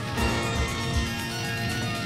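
Soundtrack music: held chords sounding over low, pulsing beats.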